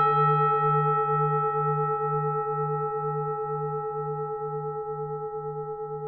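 Buddhist temple bell ringing on after a single strike, its tones slowly fading and its deep low hum pulsing about twice a second.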